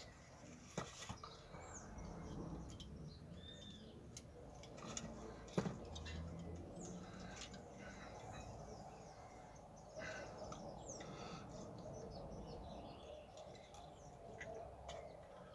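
Small birds chirping off and on in the background, short high rising and falling chirps. There are faint clicks and rustling from handling, with one sharper click about a third of the way in.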